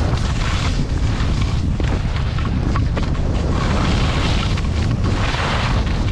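Skis carving and sliding on snow, a hiss that swells and fades with each turn, over a steady low rumble of wind on the microphone from the skier's speed.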